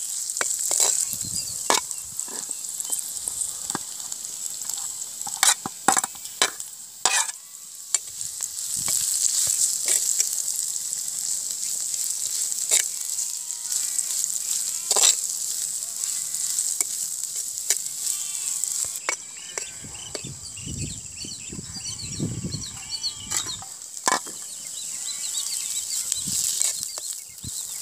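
Chopped small onions and green chillies sizzling in hot oil in a clay pot, with a steady hiss. A metal spoon stirs them, making repeated sharp scrapes and clicks against the pot.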